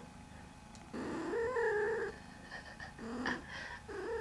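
Domestic cat giving three drawn-out, pitched meows: one long call about a second in, then two shorter ones near the end.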